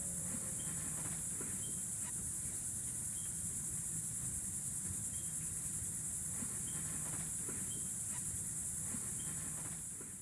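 Steady high-pitched insect chorus, with short high chirps now and then over a low background rumble. It fades out at the very end.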